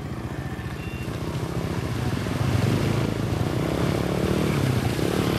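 Small motorbike engine running as it rides through a shallow river ford, getting louder as it comes closer, with water splashing from the wheels.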